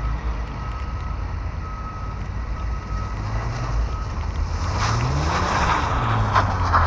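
Car engines on a snowy lot: a steady low engine drone, then from about four seconds in a Saab 9-3 sliding sideways through the snow, its engine note rising and falling. A hiss of tyres and thrown snow grows louder toward the end, with wind on the microphone.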